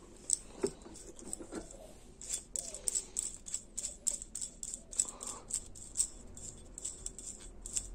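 Irregular small clicks and light rattles from transmission parts being handled, with many quick ticks close together.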